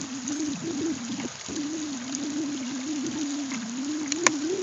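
Shallow rocky creek trickling and gurgling steadily, with a couple of sharp clicks about four seconds in.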